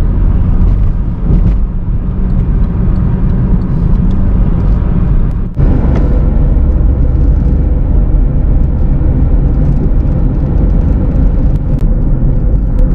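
A car on the move: a steady low road-and-engine rumble, with a brief dropout about five and a half seconds in.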